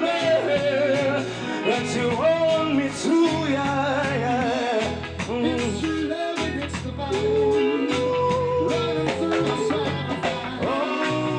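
A live soul band plays: male vocalists sing over electric guitar, drums and a steady bass line, and the lead voice holds one long note with vibrato about two-thirds of the way through.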